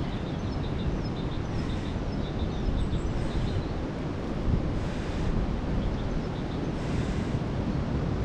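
Wind buffeting the microphone: a steady low rumble with a few soft gusts of hiss. Faint short high chirps repeat during the first few seconds.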